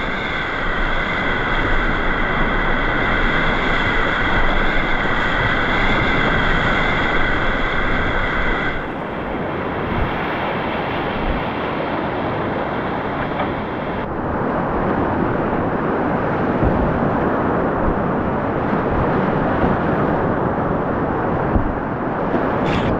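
Steady rushing of whitewater on a river. The character of the rush shifts abruptly about 9 seconds in and again about 14 seconds in.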